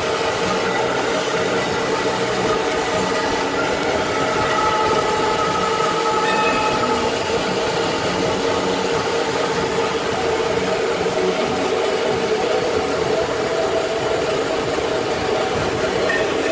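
Automatic band saw cutting machine for cotton rolls running: a steady mechanical drone with several steady whining tones.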